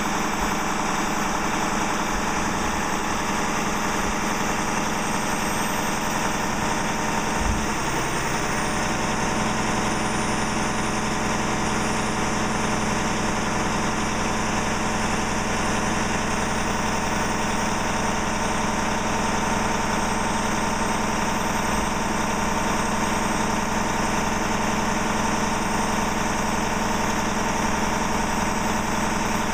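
Diesel engine of a Crane Carrier LET2 garbage truck idling steadily, heard up close at its open engine compartment. There is a brief low thump about seven seconds in.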